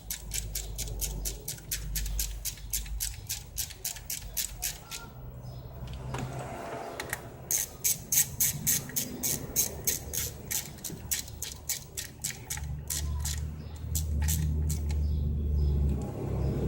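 Ratchet wrench clicking in quick even strokes, about four a second, as the parts are tightened during reassembly. The clicking pauses for about two seconds near the middle, then starts again.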